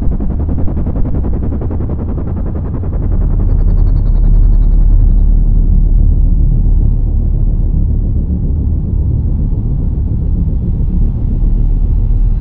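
Deep, steady low rumble from a dark soundtrack drone, swelling about three seconds in.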